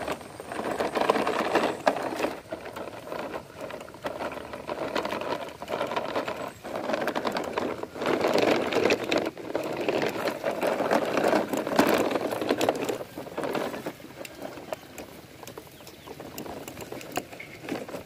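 Plastic toy dump trucks pushed through loose, lumpy soil, their wheels and bodies crunching and rattling over the dirt clods. It is a crackly scraping full of small clicks that swells and fades as the trucks move.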